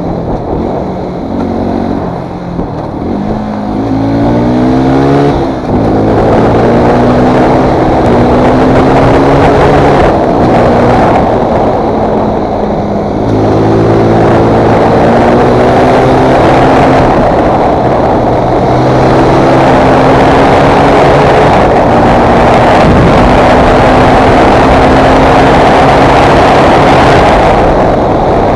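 Fantic Performance 125's single-cylinder four-stroke engine under hard acceleration while ridden, its pitch climbing then dropping at each gear change several times, then held at high revs near the end.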